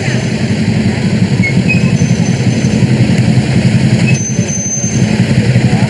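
Engines of motorcade vehicles running as they pass slowly at close range: a loud, steady low rumble.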